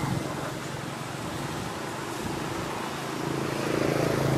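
A steady engine hum from a passing motor vehicle, growing louder about three seconds in, over outdoor background noise.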